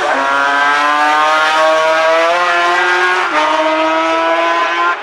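Racing engine of a classic sidecar outfit at full throttle, its pitch climbing steadily as it accelerates, with an upshift right at the start and another about three seconds in.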